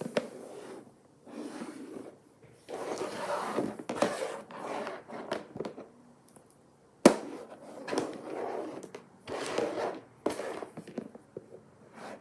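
Small plastic toy monster figures knocking and scraping against each other and the tabletop during play, in a string of short rubbing bursts, with a sharp knock about seven seconds in.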